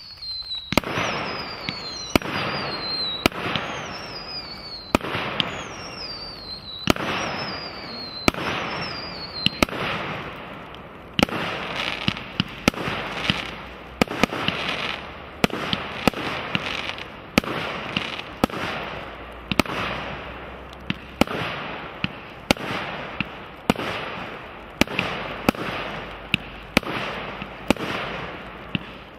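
A 63-shot firework cake of 25 and 45 mm shells firing in rapid succession, one sharp report after another. The reports come about once a second at first, several of them with a falling whistle. From about ten seconds in they come faster, with the noise of the bursting effects filling the gaps.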